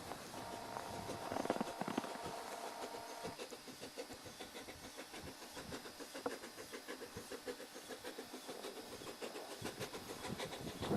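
C2 narrow-gauge steam locomotive running: steam hissing over a rapid, regular beat of exhaust and wheels. A faint steady tone sounds during the first few seconds.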